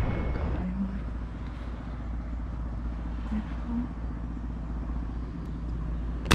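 Steady low outdoor background rumble while the shot is being aimed, then near the end a single sharp snap as the rubber-band slingshot is fired.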